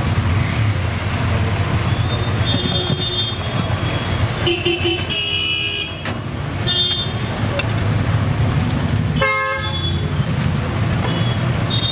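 Road traffic rumbling steadily, with vehicle horns tooting several times: short high toots and one fuller, lower honk about nine seconds in.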